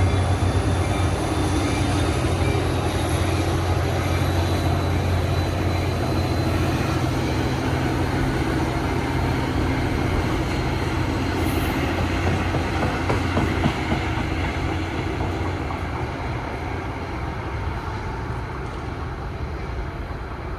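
Passenger train running through the station on the rails: a steady rumble with a strong low hum that weakens about two-thirds of the way in, and a faint high whine from the wheels in the first half.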